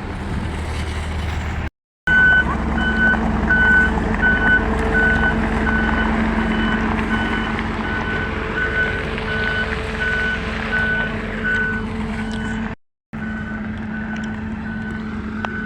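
Truck reversing: a reversing alarm beeping about twice a second over the engine running. The sound drops out briefly twice.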